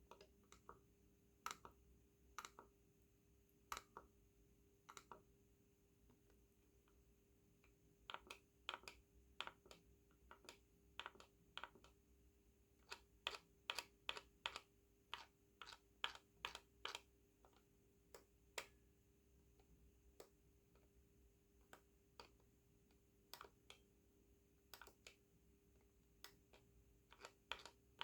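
Logitech M590 Silent mouse clicking: soft, faint clicks, a few single ones spaced a second or more apart at first, then quicker runs of clicks from about eight seconds in. A faint steady hum runs underneath.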